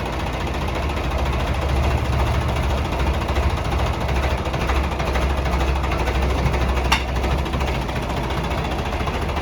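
Tractor diesel engine running steadily at low speed, with one sharp click about seven seconds in.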